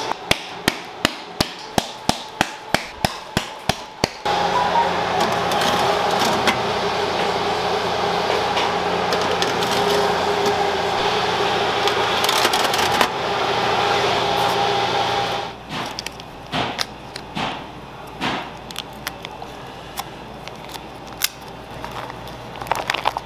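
A metal sheet pan of piped macaron shells rapped repeatedly on a steel counter, sharp knocks about three a second for four seconds, the usual way to knock air bubbles out of macaron batter. Then a convection oven's fan hums steadily while the tray is slid in, cutting off about fifteen seconds in, followed by scattered crinkling of a foil butter wrapper.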